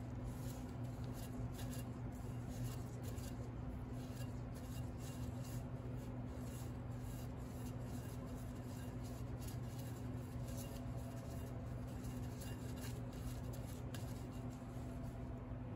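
Faint, irregular scraping and light tapping of cake-decorating tools working buttercream, over a steady low hum.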